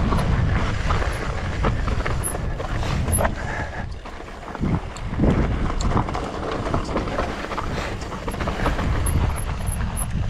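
Wind buffeting the microphone of a mountain bike moving fast down a rocky trail, with the tyres and frame knocking and rattling over rocks. The wind noise dips briefly about four seconds in.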